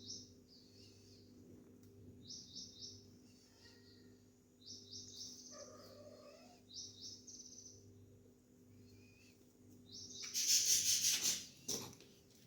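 Small birds chirping in short, rapid, high-pitched bursts every second or two, with a lower call about halfway through. A loud hissing, rustling noise comes in near the end. A steady low hum runs underneath.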